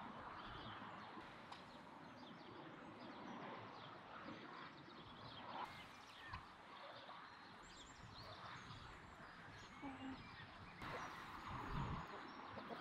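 Faint farmyard ambience: scattered short bird chirps over a soft steady outdoor hiss, with poultry foraging in the yard and an occasional soft low thump.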